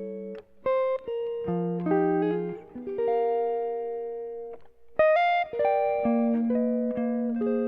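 Soundtrack music: a guitar plucking chords and single notes, each ringing and fading, with brief breaks about half a second in and just before five seconds.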